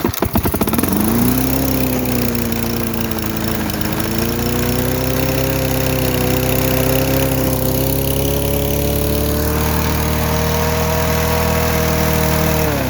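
Small walk-behind lawn mower engine firing up, rising in pitch and settling into a steady run, then shut off near the end, its pitch falling away as it stops.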